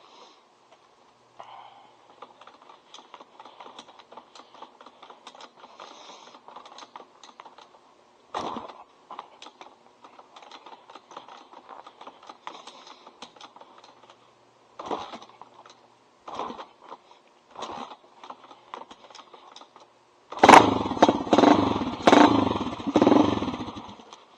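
Cold start of a 1985 Honda XR350R single-cylinder four-stroke dirt bike by kickstarter, with no decompression lever used: several separate kicks thud through, then about 20 seconds in the engine fires and runs loud and uneven through its loud pipe for about four seconds before it stops.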